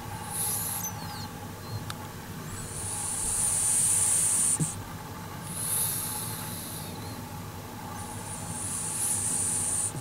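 Pug snoring in its sleep: hissing breaths that come and go about every two to three seconds, over a faint steady hum.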